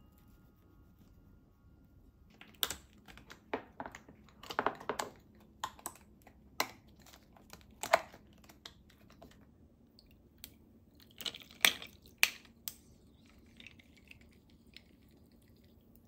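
Irregular sharp clicks and taps of kitchenware being handled on a countertop, about a dozen over ten seconds: orange wedges going into a glass bowl and a silicone food cover being handled. Near the end comes a faint soft hiss of tea being poured over ice.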